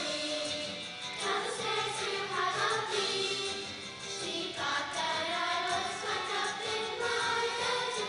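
Middle-school choir singing.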